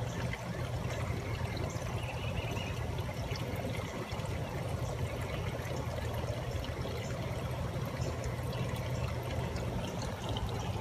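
Storm runoff water flowing and trickling steadily.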